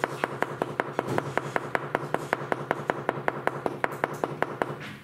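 Rapid, fairly regular clicking, about four clicks a second, over a low steady hum; the clicking stops near the end.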